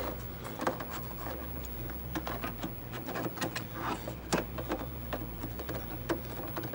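Hands working among cables behind a computer, plugging in a Koala Pad cartridge: scattered plastic clicks and knocks with cable rustling, over a steady low hum.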